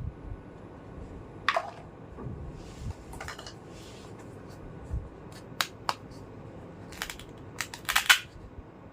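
Small plastic toy pieces clicking and clacking as they are handled. There are separate sharp clicks every second or two, then a quick run of clacks near the end.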